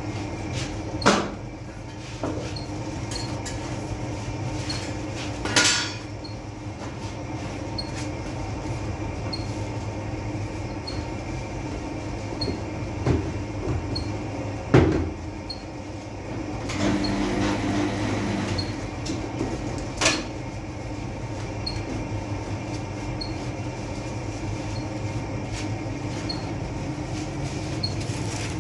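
Steady rumble of a working bakery around a gas-fired clay tandoor, with a few sharp knocks and clatters of handling, the loudest about a second in and again near 15 seconds. A faint tick repeats about once a second.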